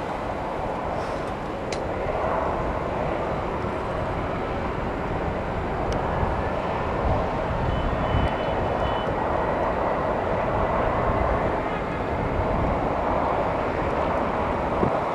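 Steady distant jet engine noise across an airfield, with a faint high whine in the middle, mixed with wind on the microphone.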